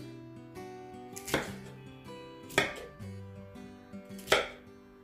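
A knife chopping cauliflower florets on a wooden cutting board: three sharp strikes, a little over a second apart, over soft background music.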